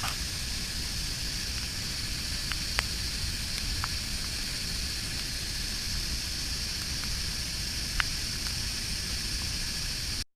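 Waterfall: a steady rush of falling water, with a few faint sharp ticks scattered through it. The sound cuts out abruptly for an instant near the end.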